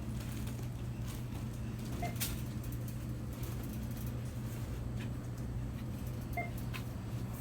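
Store ambience: a steady low hum, such as a store's ventilation or refrigeration, with scattered faint clicks and rattles. Two short electronic beeps sound about two seconds in and again near the end.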